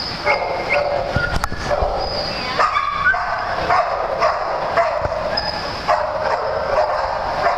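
Small dogs barking and yipping, calls overlapping one another in a fast, continuous run.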